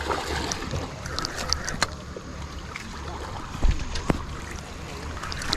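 Water splashing and sloshing, with wind buffeting the microphone and scattered sharp clicks.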